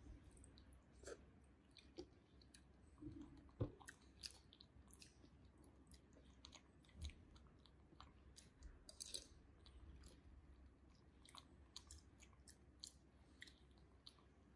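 Faint eating sounds: scattered small clicks and taps of plastic spoons against a plastic bowl and a paper cup of grass jelly, with soft chewing. The sharpest tap comes about three and a half seconds in.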